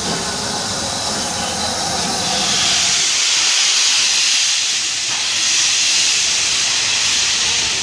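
Steam hissing loudly from the cylinder drain cocks of rebuilt West Country class steam locomotive 34052 'Lord Dowding'. The hiss grows louder and brighter about two seconds in and then holds steady.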